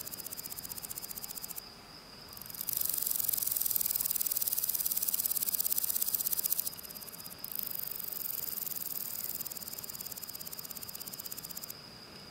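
Grasshopper stridulating: high-pitched rasping made of rapid, evenly pulsed strokes in three bouts with short pauses between, the middle bout the loudest. A faint steady high tone runs underneath.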